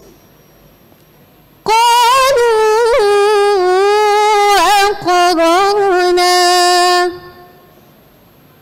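A young woman's voice reciting the Quran in melodic murattal style into a microphone. One long phrase starts about two seconds in, its pitch wavering and ornamented at first and then held on one steady note, and it stops about seven seconds in.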